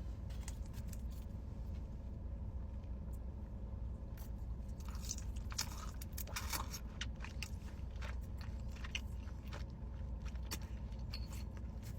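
A person biting and chewing fried chicken, with irregular crunches and wet mouth clicks close to the microphone.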